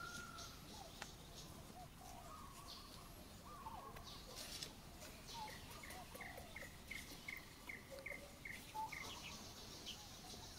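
Faint outdoor birdsong: scattered short calls, with a run of about nine evenly spaced high chirps, some three a second, through the middle, and a high insect buzz at the start and again near the end.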